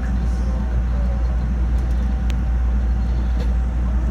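CTA 'L' train running on elevated steel track, heard from inside the car: a steady deep rumble with a faint steady whine, and a single sharp click about two seconds in.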